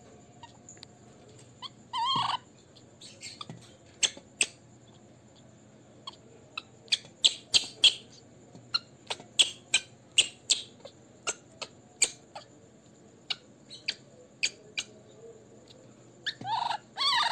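Baby monkey's high, squeaky calls: a drawn-out whining cry that bends in pitch about two seconds in and again near the end, with many short, sharp chirps in between.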